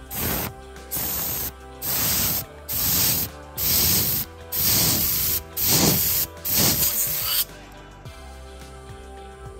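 Short blasts of compressed air from a rubber-tipped blow gun into the oil feed hole of a rebuilt Volvo Penta HS1A clutch drum: an air check of the clutch piston. There are about nine hissing bursts, roughly one a second, ending about seven seconds in.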